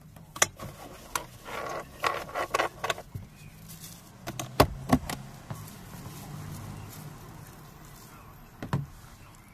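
Hands working on a car's plastic door trim panel: a string of sharp clicks and knocks with some rustling, busiest in the first half, and one more knock near the end. A low steady hum runs under the middle few seconds.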